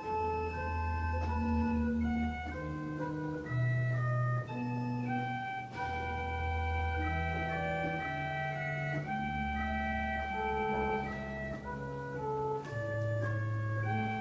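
An Italian-built mechanical pipe organ plays a slow piece in several voices. Long low bass notes change every second or two under held chords and moving upper notes.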